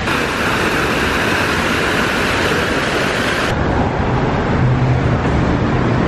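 Fountain water splashing in a steady hiss, cutting off abruptly about three and a half seconds in to street traffic: a trolleybus passing with a low rumble and hum.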